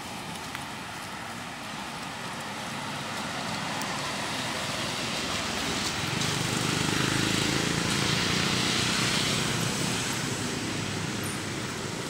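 A road vehicle passing: traffic noise that swells to a peak around the middle and fades toward the end.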